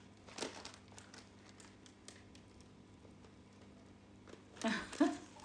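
Mostly quiet room with a few faint clicks in the first two seconds, then a short vocal exclamation from a woman near the end.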